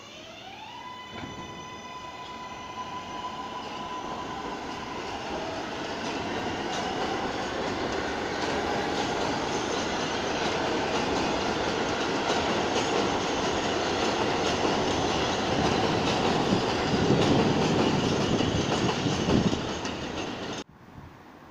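New York City subway train pulling out of an elevated station: its electric traction motors give a whine that climbs in stepped tones over the first second and then holds steady, under a steadily growing rumble and rush of wheels on the rails. The sound is loudest shortly before it cuts off abruptly near the end.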